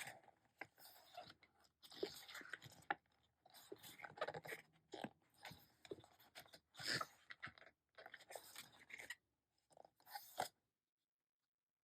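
Faint, irregular rustling and crinkling of photo book pages being turned and handled, in scattered soft crackles and scrapes that stop shortly before the end.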